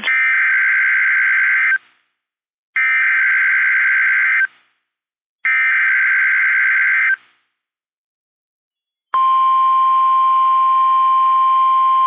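NOAA Weather Radio emergency alert: three buzzy digital SAME header data bursts, each under two seconds long with about a second of silence between them. About nine seconds in, the steady single-pitch 1050 Hz warning alarm tone starts.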